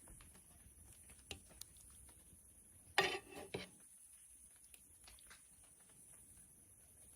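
Kitchenware clattering briefly about three seconds in, a second knock just after, with a few faint clicks before and after.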